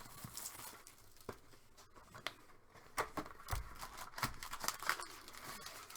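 Trading cards and their packaging being handled on a table: scattered light clicks, snaps and paper rustling, with a few sharper taps spread through.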